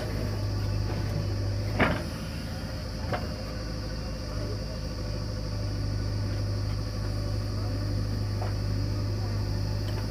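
Diesel engine of a JCB 3DX backhoe loader running steadily while it digs soil and dumps it into a tractor trolley, with a sharp knock about two seconds in and a lighter one about a second later.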